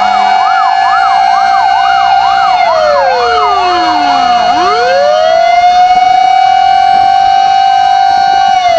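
Fire engine sirens: a slow wail that holds high, sweeps down and climbs back up about every four seconds, overlaid by a faster yelp rising and falling about twice a second that stops about halfway through.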